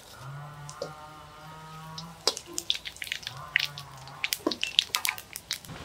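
Fennel seeds and bay leaves crackling and popping in hot oil in an iron kadai while being tempered, with scattered sharp pops that come thicker in the second half. A low steady hum sounds twice in the first part.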